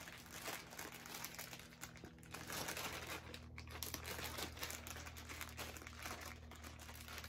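Faint crinkling and rustling of a mail-order package's wrapping as it is handled and cut open with scissors.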